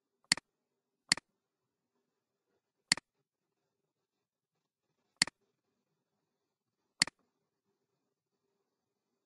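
Five computer mouse button clicks, spaced irregularly, each a quick double tick.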